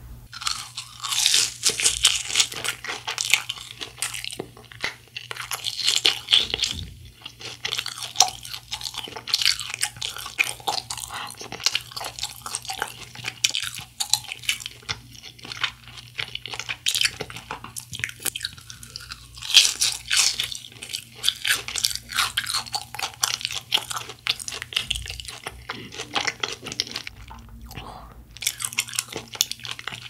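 Crunching and chewing of a crisp fried cheese ball, close to the microphone, in irregular crackling bites with louder bursts of crunching about a second in, around six seconds and around twenty seconds.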